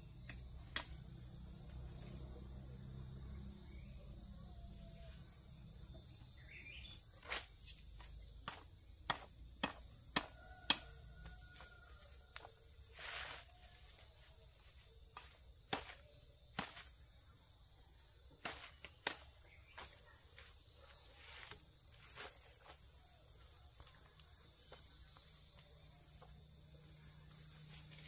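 Steady, shrill chorus of crickets or similar insects, a continuous high-pitched drone. A scattering of sharp clicks cuts through it, most of them clustered in the middle.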